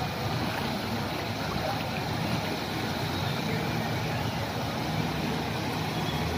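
Floodwater rushing steadily across a road and churning over a low edge, a constant rush of water.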